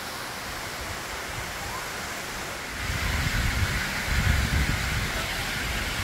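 Steady rushing of a small river tumbling in cascades. About halfway through, a louder, uneven low rumble joins it.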